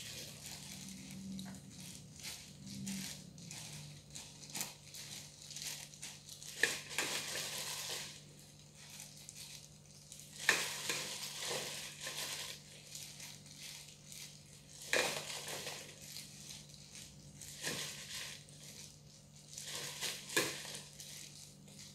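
Handfuls of washed leafy greens being packed into a plastic clamshell container by hands in crinkling disposable plastic gloves: irregular rustling and crackling, over a steady low hum.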